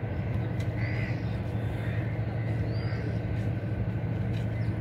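A steady low engine hum, with a few short bird calls over it.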